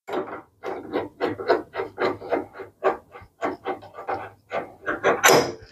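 Drill chuck sleeve being turned by hand to close the jaws on a half-inch drill bit: a quick run of short metal-on-metal strokes, about four a second, the loudest near the end.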